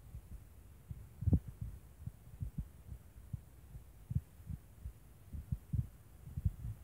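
Low, irregular thumps on the microphone, several a second, with one stronger thump about a second in.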